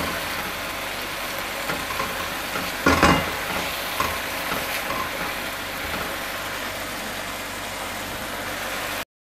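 Tomato-onion masala sizzling steadily as it is fried down (bhuna) in a non-stick pan, stirred with a wooden spatula, with a couple of spatula scrapes against the pan about three and four seconds in. The sound cuts off suddenly near the end.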